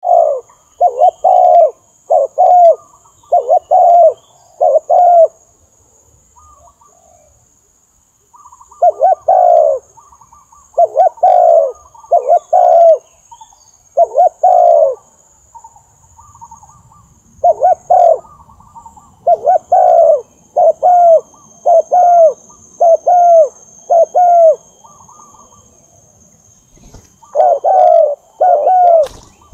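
Spotted dove cooing: phrases of several short, falling coos in quick succession, each phrase separated by a pause of a couple of seconds.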